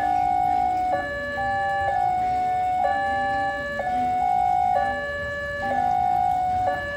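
Electronic two-tone alarm, a higher and a lower tone alternating about once a second in an even repeating cycle.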